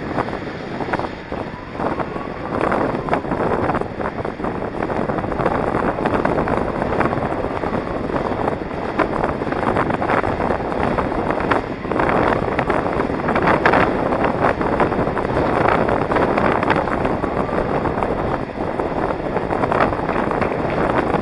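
Wind rushing over the microphone of a camera carried by a racing inline skater, mixed with the rolling of inline skate wheels on asphalt. It is a steady, loud noise with frequent short irregular scuffs.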